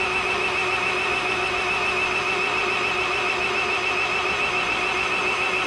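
Electric drill running hard under load, spinning the Oliver 1855 over/under powershift's hydraulic pump for a pressure test of about 160 to 165 PSI: a steady high whine that cuts off at the very end. The drill is labouring enough to start smelling of burning.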